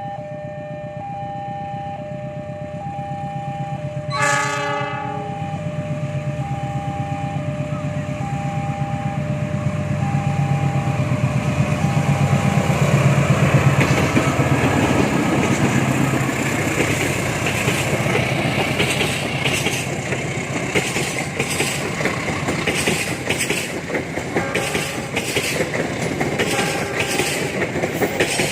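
A train approaching and passing, with a short horn blast about four seconds in. Its low engine rumble builds to a peak midway, and then the wheels clatter over the rail joints in a regular rhythm as the cars go by. A pulsing warning tone sounds under the first half.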